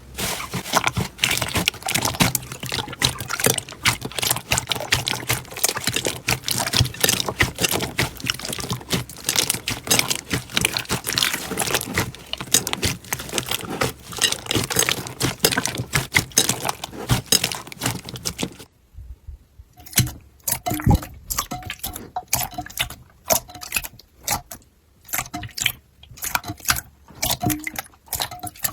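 Slime being squeezed and worked by hand: dense, wet crackling and popping. About two-thirds of the way in it changes abruptly to sparser single pops and clicks.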